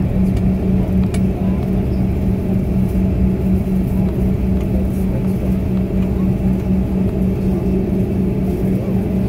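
Jet airliner's engines and rumble heard from inside the passenger cabin while it taxis: a steady low drone with a regularly throbbing hum.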